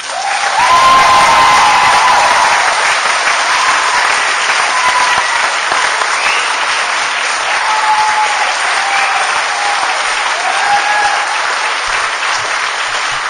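Audience applauding steadily, with a few voices cheering.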